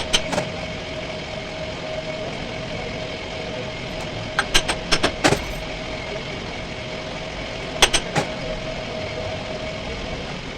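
A machine running steadily with a constant hum, broken by short groups of sharp knocks: a couple at the start, a run of about five a little before the middle, and three more about two thirds of the way through.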